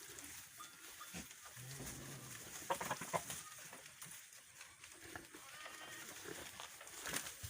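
Goats calling faintly, one short low call about two seconds in and a fainter one later, with a few sharp knocks in between.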